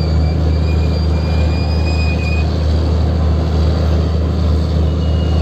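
Fishing vessel's diesel engine running at a steady drone, with a faint high whine over the low hum.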